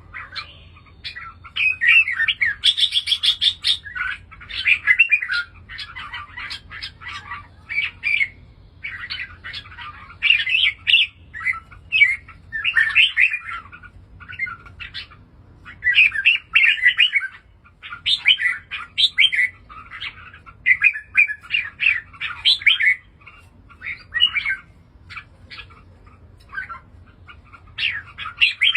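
Red-whiskered bulbul song: short, bright warbled phrases, one after another with brief pauses.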